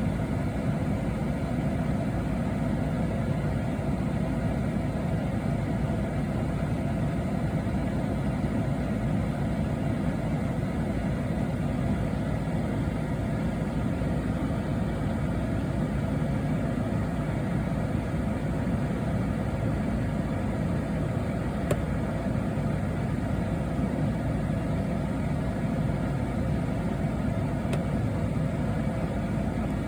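A car engine running steadily, with road or engine noise and a few faint steady tones.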